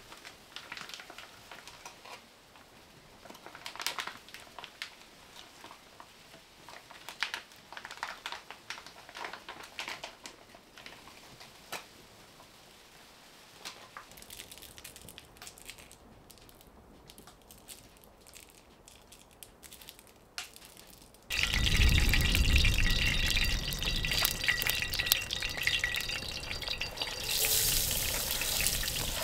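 Faint scattered clicks and taps, then about 21 seconds in diced potatoes hit hot oil in a frying pan and start sizzling loudly, the sizzle growing sharper near the end.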